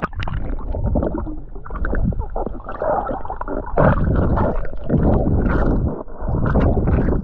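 Muffled gurgling and sloshing of lake water around a swimmer, heard through a waterproof action camera at or under the surface, surging louder and softer.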